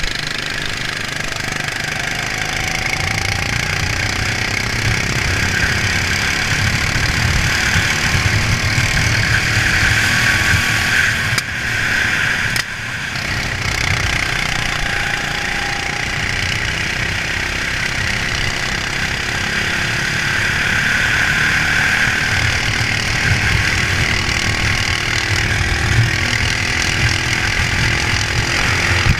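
Racing go-kart engine running hard under the onboard camera, its revs rising and falling slowly through the laps. It drops briefly about twelve seconds in, then climbs again.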